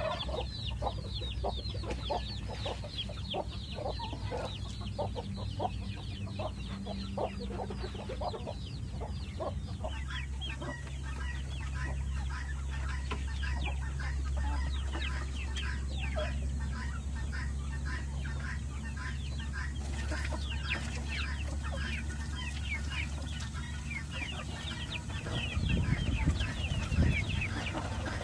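A flock of chickens clucking continuously, many short overlapping calls, over a steady low hum.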